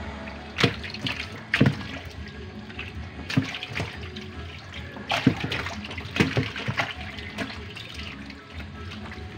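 Live fish thrashing in shallow water in a plastic bucket. Sharp, irregular splashes every second or so over a steady wash of moving water.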